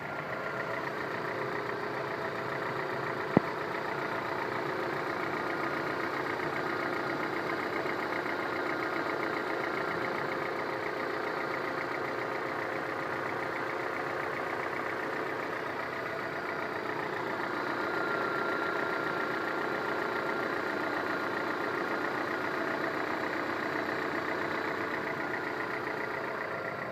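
Honda F18B2 four-cylinder petrol engine idling with a diesel-like knocking clatter. The knock at idle has no cause found after new piston rings, rod bearings and valve stem seals; mechanics say most engines of this type make the same sound. A single sharp click sounds about three seconds in.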